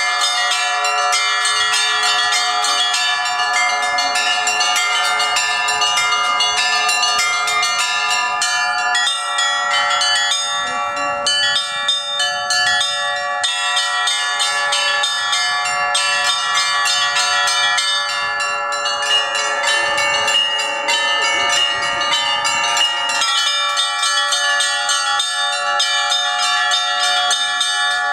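Russian church bells rung together in a continuous peal: small bells struck in quick succession over the sustained ringing of several bells.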